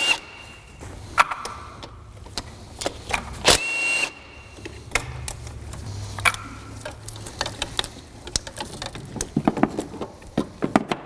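Cordless ratchet with an E12 Torx socket spinning out bracket bolts in short bursts of motor whine, the longest about three and a half seconds in. Light clicks and knocks of loosened parts and tools being handled follow.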